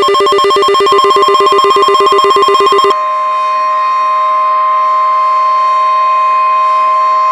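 Synthesized emergency alert tones: a fast-pulsing, telephone-like ringing tone over a slowly rising siren tone, which cuts off abruptly about three seconds in, leaving a steady two-tone alert sound.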